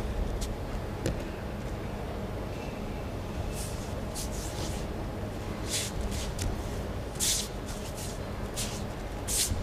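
A hall's steady low hum with a series of short, soft swishes, about seven of them in the second half: bare feet and hakama sliding and brushing on the tatami mat during an aikido sword demonstration.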